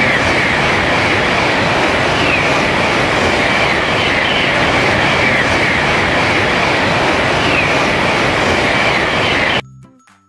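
A train passing close by: a loud, steady rush of wheel and rail noise with a brighter, slightly squealing edge. It cuts off suddenly less than a second before the end.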